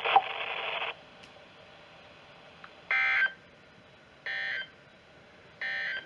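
NOAA weather radio sending the Emergency Alert System (SAME) data header for the Required Weekly Test: three short bursts of digital data tones about 1.3 seconds apart, after the broadcast voice cuts off about a second in.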